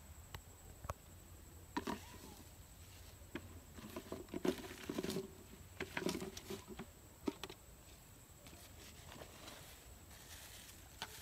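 Close handling noise: scattered rustles, small clicks and light knocks as hands work fishing line and reach into a plastic bucket, busiest between about four and seven seconds in.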